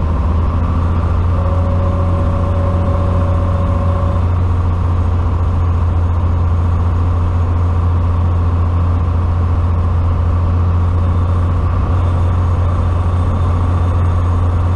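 Cessna 182T's six-cylinder Lycoming piston engine and propeller running steadily on final approach, heard from inside the cabin as a loud, even low drone with a hiss of air over it. A faint steady tone sounds briefly near the start.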